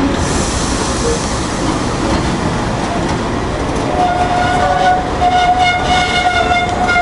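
Loaded engineering-train wagons rolling past, a steady heavy rumble of wheels on rail with clickety-clack. About four seconds in, a steady high-pitched squealing tone joins the rumble and carries on with brief breaks.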